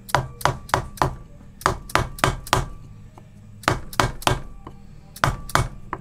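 Hammer blows on a wooden block, driving a new grease seal into the hub of a brake rotor. About fourteen sharp strikes come in quick groups of three or four, with short pauses between the groups.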